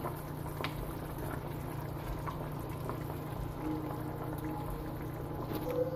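Potato-and-kofta curry simmering in a pot, with a few soft plops and light knocks as fried meatballs are set into the gravy by hand, over a steady low hum.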